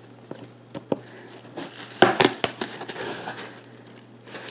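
A cardboard package being opened and handled: crinkling and tearing with scattered knocks, loudest about two seconds in.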